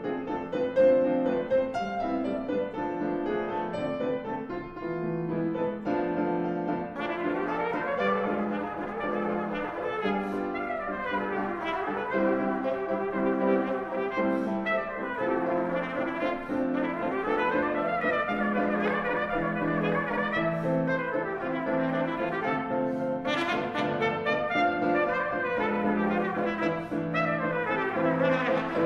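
Trumpet and piano playing a contemporary classical sonata movement. From about seven seconds in, fast runs sweep up and down again and again over held low chords.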